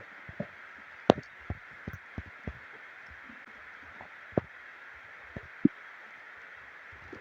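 Stomach gurgling: a scatter of short, irregular pops and gurgles, the sharpest about a second in, over a steady hiss.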